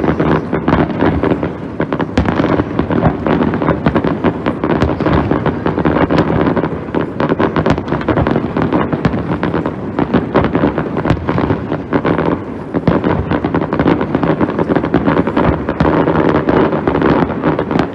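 Fireworks display: a dense, unbroken run of rapid bangs and crackles, many shells going off in quick succession.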